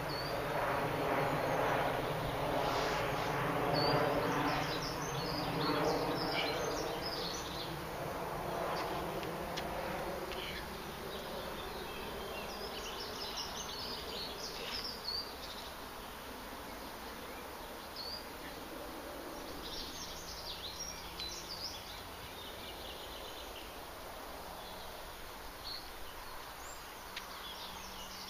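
A buzzing drone with several pitches, loudest for the first ten seconds and then fading away. Short bird chirps come in scattered clusters throughout.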